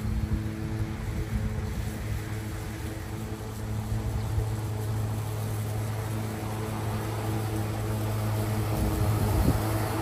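Mowrator S1 Pro battery-electric remote-control lawnmower cutting grass: a steady motor hum and blade whir that grows a little louder near the end as the mower comes closer.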